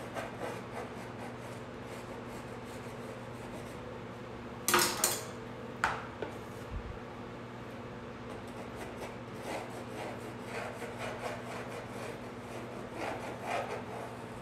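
A small cake-decorating spatula scraping and rubbing faintly as it spreads whipped cream onto the side of a cake. Two sharp clatters come about five and six seconds in, over a steady low hum.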